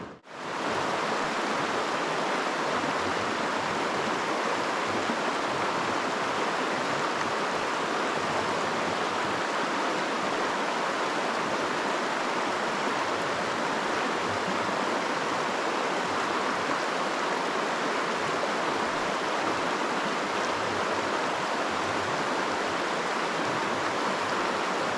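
Steady rush of flowing river water, an even hiss with no breaks, cutting in just after a brief dropout at the start.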